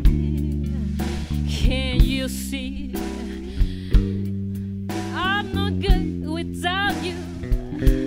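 Live band music: a woman sings phrases with a wavering vibrato over a drum kit, held bass notes and guitar.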